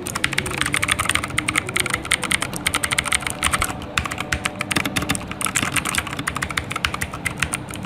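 Fast typing on a Redragon K569 mechanical keyboard with blue switches: a quick run of sharp key clicks, each keystroke clicking, recorded close to the microphone.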